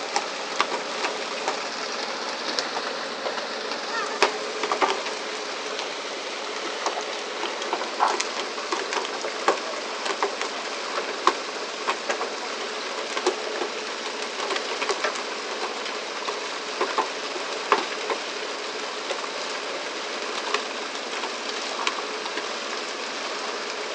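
Steady rushing noise of water spray and the moving fishing boat, with irregular sharp slaps and knocks as fish are jerked aboard on poles and land on the deck.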